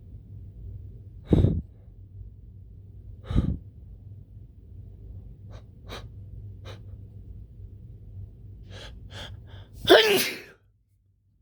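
A man's hitching sneeze fit: two loud bursts about two seconds apart, a run of short, sharp catching breaths, then one big sneeze with voice in it about ten seconds in.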